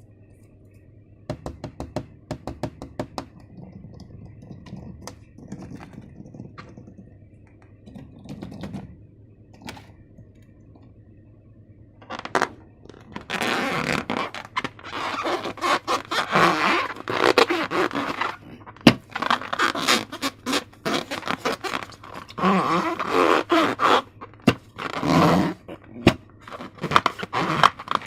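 Close-up handling sounds from slime making: a run of light clicks and taps, then from about twelve seconds in a dense, loud stretch of scraping and crackling as the slime material is worked.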